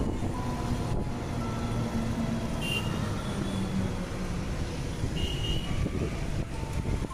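Engine and road noise heard from a moving vehicle in town traffic: a steady low rumble with a faint engine hum. Two brief high beeps come through, about three seconds and five seconds in.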